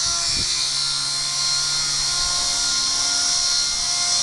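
Small electric RC scale Black Hawk helicopter in flight: a steady whine from its motor and rotors, several held tones over a high hiss. Low wind buffets hit the microphone twice in the first half-second.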